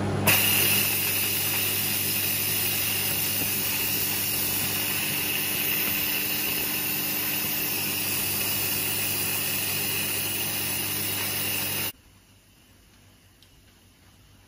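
Instant Pot electric pressure cooker's release valve venting steam in a loud, steady hiss, a quick pressure release at the end of cooking, over the steady hum of a kitchen extractor fan. Both cut off suddenly about twelve seconds in.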